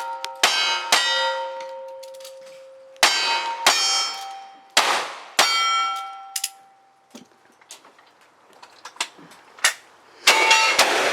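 Cowboy action match gunfire on steel targets: each shot comes with the bright clang of a struck steel plate that rings on and fades. There are about seven hits in quick succession over the first six seconds, a few seconds of small clicks and knocks, then another couple of shots and ringing hits near the end.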